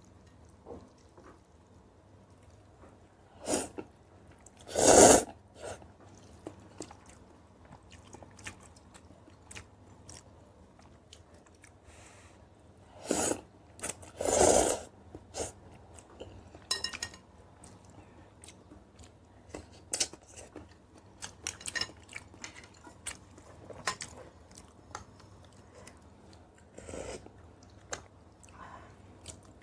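A person eating close to the microphone, chewing and crunching food with many small wet clicks. A few louder noisy mouthfuls stand out, the loudest about five seconds in and two more together near the middle.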